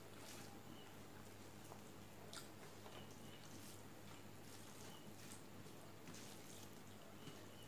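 Faint eating sounds: fingers squishing and mixing rice and fish curry on a steel plate, and soft chewing, with scattered small clicks over a low steady hum.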